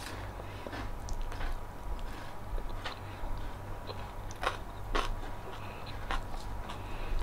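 A person biting and chewing crunchy food close to the microphone, with sharp crunches every second or so.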